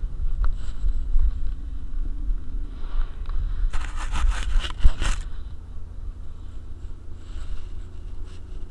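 Low, steady rumble of the Jeep ride on a dog's collar camera. About four seconds in, a second dog presses its head and collar against the camera, giving a burst of close scraping and rubbing noise that lasts about a second and a half.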